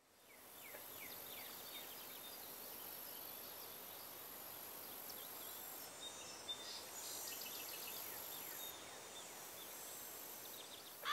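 Faint outdoor ambience fading in over the first second: scattered bird chirps and a steady high-pitched insect drone over a low background hiss.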